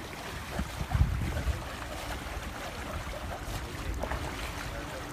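Wind buffeting the microphone: an uneven low rumble with a faint hiss, and a louder low thump about a second in.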